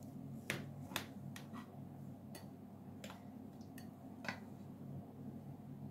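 A kitchen knife slicing through a baked carrot and walnut cake: a scattering of faint ticks and light taps as the blade cuts and knocks on the serving plate, over a low steady room hum.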